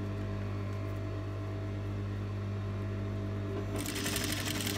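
Electric sewing machine humming steadily, then about three-quarters of the way in a short, rapid run of stitching lasting about a second: sewing a channel alongside a cord tucked into the fabric for corded piping.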